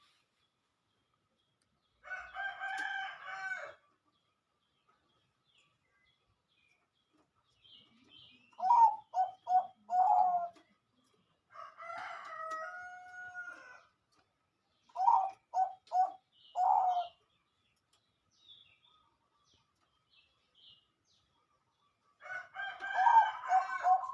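Zebra dove (perkutut) cooing twice, each phrase a note, then three quick short notes and a longer final coo. Longer, fuller calls that sound like a rooster crowing come between the phrases, about two seconds in, in the middle and again near the end.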